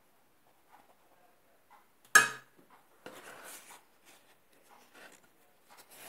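Soft rustling and crinkling of phyllo pastry sheets being folded by hand, with one sharp knock about two seconds in.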